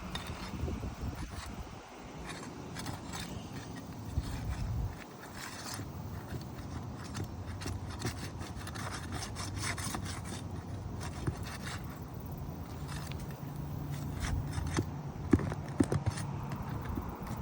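Old asphalt shingles being worked loose and their roofing nails pulled: continuous scraping and rubbing with scattered clicks.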